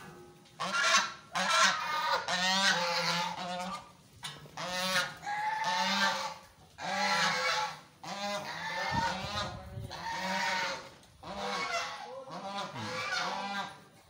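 White domestic goose honking repeatedly, a loud harsh call about once a second.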